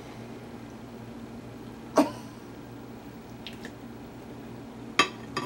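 A spoon knocking against a small cup while scooping food out of it: two sharp clicks about three seconds apart, with a few faint ticks between them.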